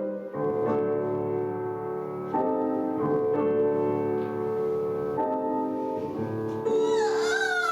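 Piano music playing slow sustained chords that change every two seconds or so; near the end a sound slides down in pitch.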